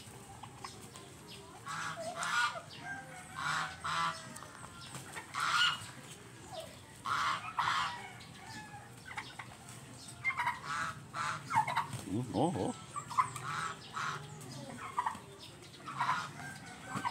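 Domestic goose fighting a turkey: short, repeated honks, about one or two a second, with hard slaps of the goose's wings striking the turkey.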